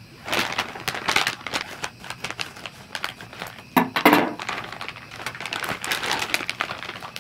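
Plastic food packaging crinkling and rustling as gloved hands handle a sweet and sour pork meal-kit bag, with the loudest crackles about four seconds in.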